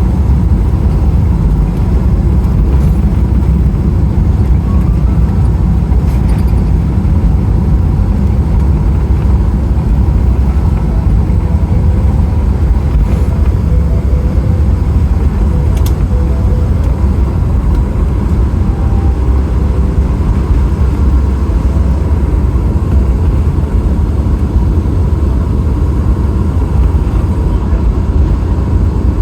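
Cabin noise inside a Boeing 777-300ER: a steady, loud low rumble from the engines and airflow, with a thin steady whine above it.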